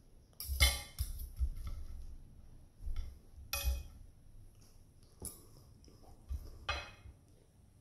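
Metal knife and fork clinking and scraping against a ceramic plate while cutting and eating fish fillet: a handful of sharp clinks spread out, with soft low knocks of handling between.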